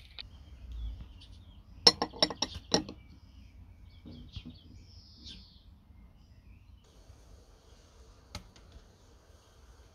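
Glassware clinking: a quick run of about six sharp glass clinks and knocks about two seconds in, then a single clink near the end as a glass bowl is set down on a kitchen scale.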